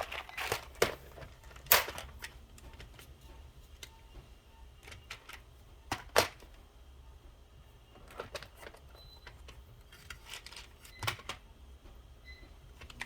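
Scattered sharp clicks and taps of a microwave's keypad buttons being pressed to clear and reset it after the power went off. The loudest clicks come about 2 s and 6 s in.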